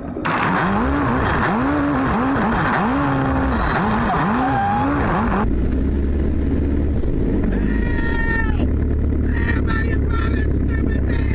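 A loud rushing noise, then about five and a half seconds in the Piper J-3 Cub's engine catches and settles into a steady, deep-toned idle.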